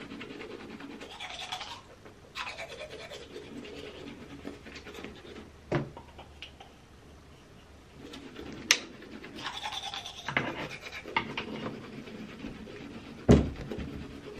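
Manual toothbrush scrubbing teeth in stretches of brushing with short pauses. A few small clicks, and one sharp knock near the end that is the loudest sound.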